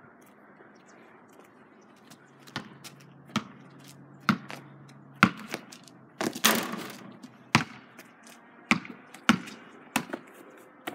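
Basketball bouncing on an asphalt driveway, single sharp bounces roughly once a second, with a longer, louder noisy burst a little past the middle.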